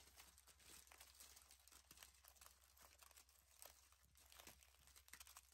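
Faint, irregular crinkling of aluminium foil as a small child squeezes and presses a crumpled foil ball in her hands.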